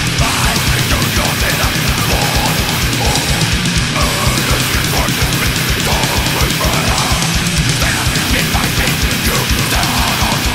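Death metal: dense distorted guitars over fast, steady kick drumming.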